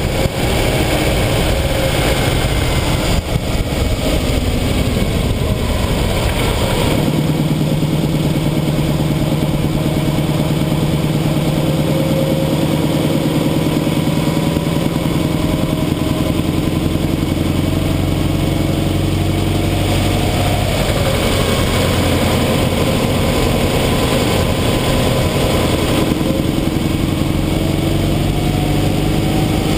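Subaru Impreza 2.0 GT Turbo's flat-four engine pulling the car along the road, with steady road and wind noise, picked up by a camera on the front spoiler. The engine note sinks over the first few seconds, holds steady, then climbs twice in the second half as the car speeds up.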